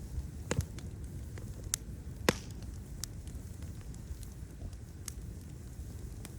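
Wood fire crackling, with a handful of sharp pops over a steady low rumble of burning. The loudest pop comes a little over two seconds in.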